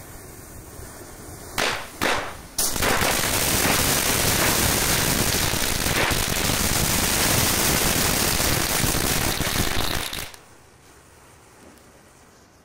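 Diwali firecrackers set off by a burning matchstick chain: two sharp bangs, then about seven seconds of rapid, continuous crackling and popping that cuts off suddenly.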